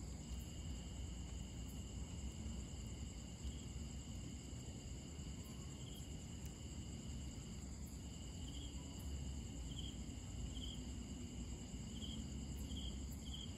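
Night insects trilling: a steady high-pitched trill, with short, slightly louder chirps coming more often in the second half, over low background noise.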